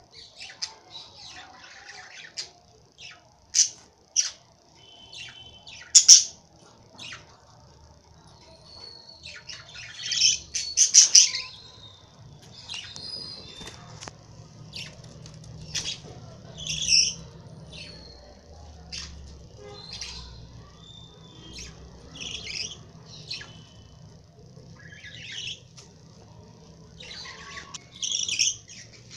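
Lovebirds chirping and squawking: short, high-pitched calls scattered irregularly, the loudest a burst about ten seconds in.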